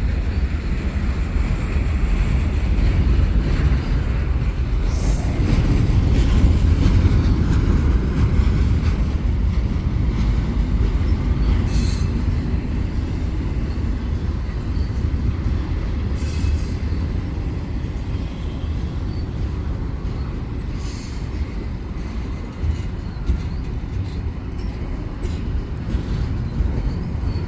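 Long freight train of double-stack and auto-rack cars passing: a steady low rumble of wheels on rail, broken by a few sharp clanks.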